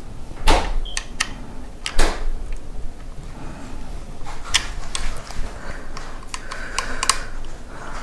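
Hex key clicking and knocking against a metal handlebar clamp bracket as its bracket screw is tightened: irregular sharp clicks, with two louder knocks about half a second and two seconds in.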